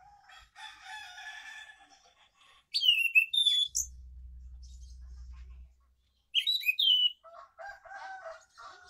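Caged anis macan thrush singing loud, short whistled phrases of swooping notes, twice, about three and six and a half seconds in. A rooster crows once in the background during the first two seconds.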